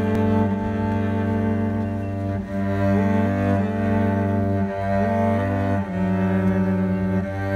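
Solo cello bowed in a slow melody, the notes changing about once a second over a steadily held low note.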